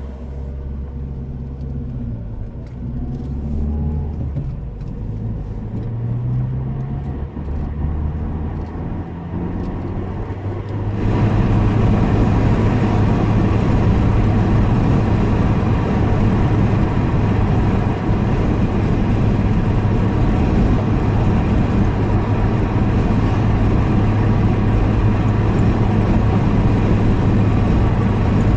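Car heard from inside the cabin. Its engine hum rises and falls in pitch as it pulls away and changes speed. About eleven seconds in, the sound switches abruptly to louder, steady road and wind noise at cruising speed, with a constant low drone.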